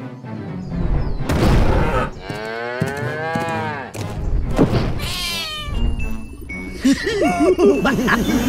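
Cartoon cow mooing: one long call about two seconds in, among other cartoon sound effects and background music.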